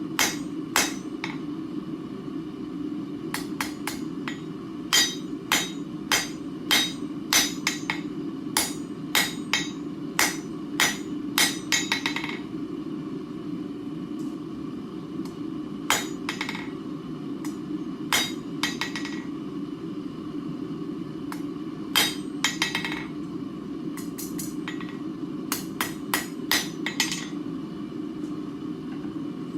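Hand hammer striking a hot steel bar on an anvil, drawing out and tapering the stock, in runs of sharp blows about two a second with pauses between heats of work; some blows ring briefly. The anvil's ring is damped by a chain laid on it, and a steady low hum runs underneath.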